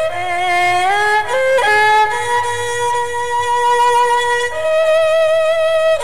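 Tro Khmer, the Cambodian three-stringed spike fiddle, bowing a slow melody of long held notes joined by short upward slides. At times a second note sounds along with the melody.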